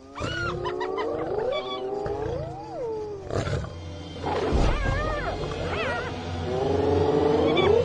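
Spotted hyenas mobbing a lion: a chorus of overlapping squealing, whooping calls that glide up and down in pitch, with a quavering stretch near the end. A deep lion growl comes in about four and a half seconds in.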